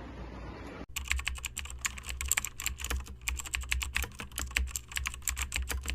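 Fast computer-keyboard typing, a dense run of key clicks that starts about a second in and cuts off abruptly near the end.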